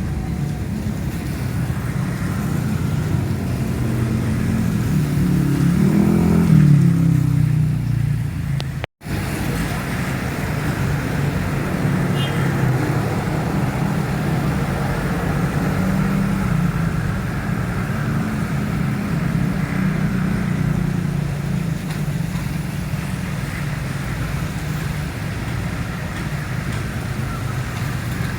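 Road traffic: a steady run of vehicle engines and tyres, with one vehicle passing louder about six seconds in. The sound drops out for an instant about nine seconds in.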